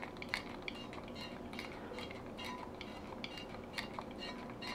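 Olive oil mist sprayer being pumped repeatedly into a glass baking dish, giving a run of faint, irregular clicks.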